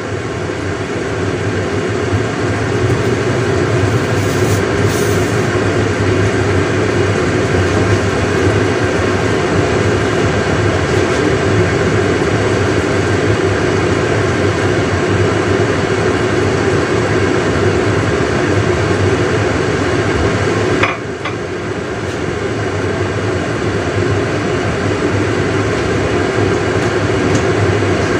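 Water boiling and sizzling under the glass lid of a covered stainless-steel wok as shiitake mushrooms steam in a little added water: a loud, steady rushing hiss. It builds over the first couple of seconds, and about two-thirds of the way through it drops briefly and builds up again.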